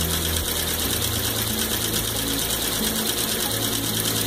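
Vintage Merrow three-thread serger sewing heavy denim-weight fabric, run nice and slow by its clutch motor: a fast, even mechanical stitching rattle over a steady motor hum.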